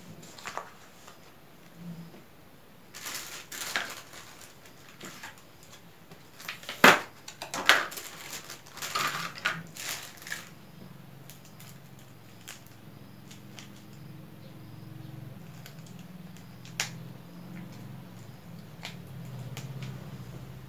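Plastic takeaway food trays and packaging handled on a table: a run of crinkles, clicks and knocks, the loudest about seven seconds in, then quieter rustling of a small plastic wrapper over a low steady hum.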